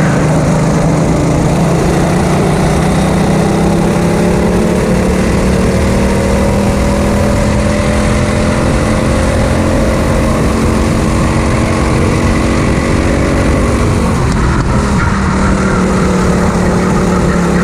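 Racing go-kart engine running hard at speed, heard from an onboard camera on the kart, with a steady rushing noise underneath. The engine note slowly rises and falls in pitch and dips briefly about three-quarters of the way through before picking up again.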